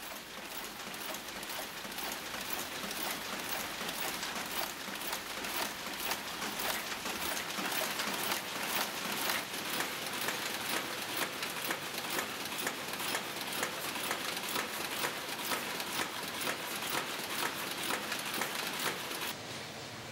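Automatic component-insertion machines on a circuit-board assembly line running: a dense, steady rattle of rapid clicks, like rain.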